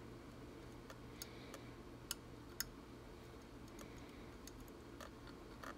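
A handful of faint, light clicks as a 10 µF capacitor's wire leads are worked into the socket of a Hameg HZ65 component tester, over a low steady hum.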